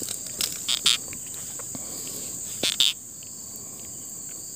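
Steady, high-pitched insect chorus. A few short rustles break through it about half a second in, just under a second in, and near three seconds in.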